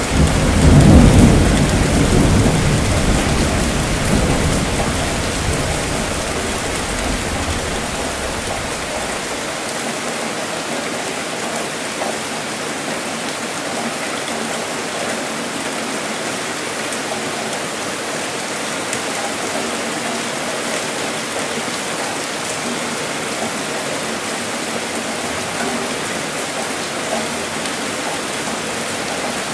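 Steady rainfall, with a thunderclap right at the start whose low rumble peaks about a second in and dies away over roughly eight seconds, leaving only the even sound of the rain.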